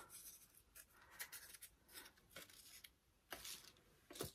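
Near silence with faint, scattered rustles of paper petals being handled and shaped by hand, and one sharper tick near the end.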